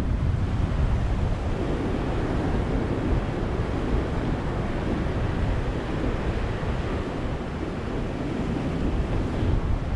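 Ocean surf breaking and washing on a beach: a steady low rumble of waves with a slow swell.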